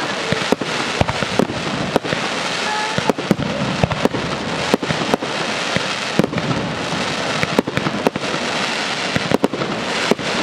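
Fireworks display going off: a dense, continuous crackle of many small bursts, punctuated by frequent sharp bangs several times a second.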